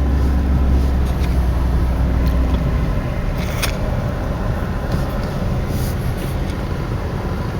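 Vehicle engine idling with a steady low hum that drops off about three seconds in, with a few sharp clicks as the gear shifter is worked. The shifter cable has slipped and the lever will not go back into park.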